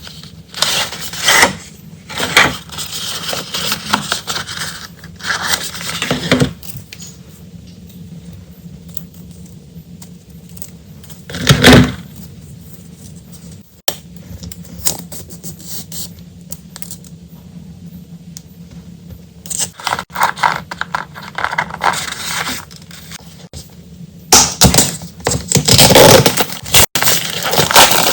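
Stationery and its packaging being handled: plastic wrapping crinkling and scraping in bursts. It goes quieter in the middle, with scattered small clicks and one loud crinkle about twelve seconds in, then louder handling returns near the end.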